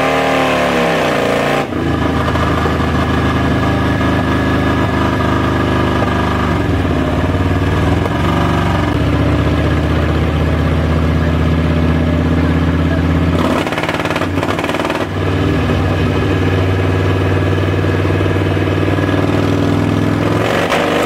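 Touring motorcycle's V-twin engine running hard in gear on a chassis dyno during a power run. The revs climb at the start and are held high and steady, dip briefly about two-thirds through, then rise again near the end.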